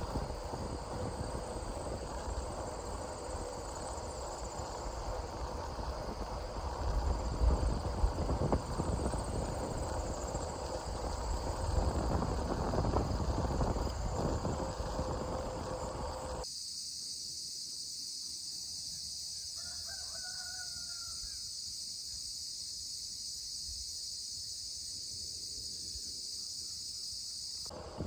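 Wind and road rumble from riding a touring bicycle along a country road, with a steady chorus of insects underneath. About two-thirds of the way in the rumble cuts off suddenly, leaving a loud, steady, high insect chorus and one faint bird call a few seconds later.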